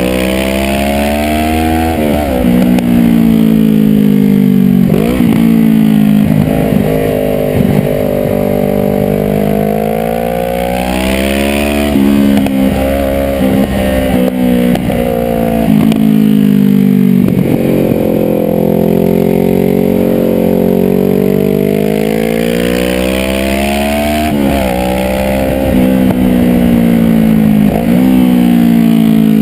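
Sport motorcycle engine under hard riding, its revs climbing steadily and then dropping sharply, over and over, as it accelerates out of and slows into bends on a twisting road.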